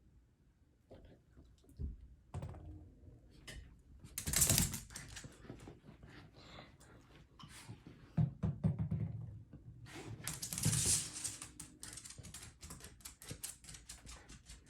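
Yorkshire terrier playing with a ball: a run of light irregular clicks and knocks, with two louder bursts of rustling scuffle, about four seconds in and again about ten seconds in.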